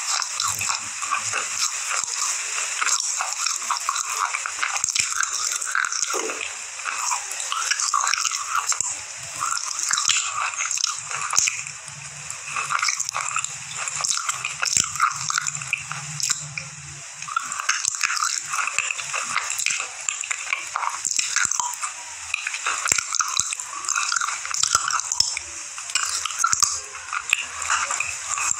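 Close-up chewing and crunching of a thick, dry slate pencil: a continuous gritty crackle of small crunches as the chalky stick is ground between the teeth.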